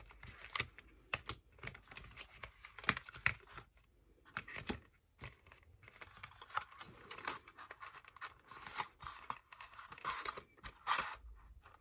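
Handling of cardstock and plastic ballpoint pens: the pens are set into a card box and the box is pushed into a cardstock sleeve, giving a scattered string of light clicks, taps and short paper scrapes.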